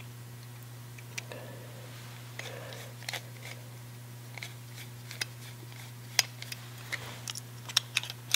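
Small metal clicks and scrapes of a screwdriver backing out a screw and the brass trigger guard being worked loose from a Cooper .31 percussion revolver's frame, irregular, busier and sharper in the second half. A steady low hum runs underneath.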